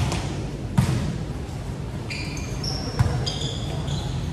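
Volleyball being struck during a rally: sharp slaps of the ball off hands and forearms, about a second in and again about three seconds in, ringing in a large gym. Short high squeaks of shoes on the court come in between.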